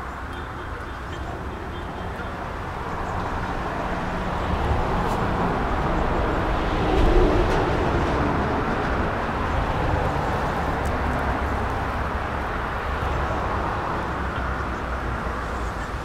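A road vehicle passing by: a rushing tyre and engine noise that swells to its loudest about seven seconds in and then slowly fades.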